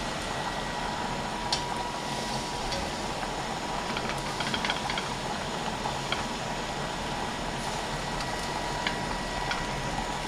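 Steady bubbling and hiss of a pot of spaghetti at a rolling boil and shrimp cooking in a wok on a gas stove. Light clicks of a slotted spoon stirring against the wok come and go, busiest about four to five seconds in.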